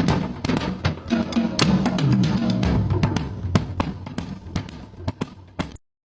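Chinese dragon dance percussion: a large drum beaten rapidly under clashing cymbals and many irregular sharp cracks. It cuts off suddenly near the end.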